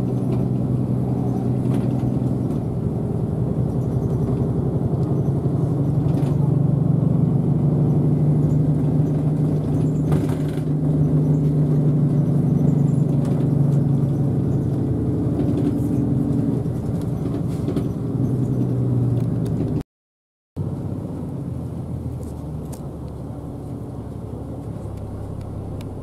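Route bus engine heard from inside the passenger cabin: a steady drone with a low hum that rises a little in pitch as the bus drives on. After an abrupt cut about twenty seconds in, the engine note is quieter and lower.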